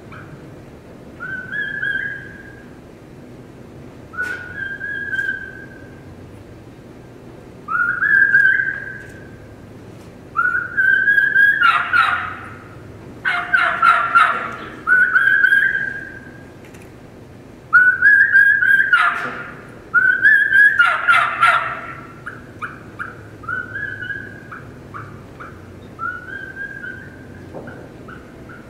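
Turkey caller performing a kee-kee run, the lost call of a young wild turkey: a string of short whistled kee notes, each rising in pitch, about one every second or two. The whistles are broken twice near the middle by louder, raspy yelping runs.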